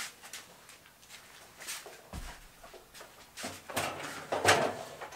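A series of knocks and clunks as a Ryobi table saw is handled and set down onto its stand, with a low thump about two seconds in and the loudest clunk near the end.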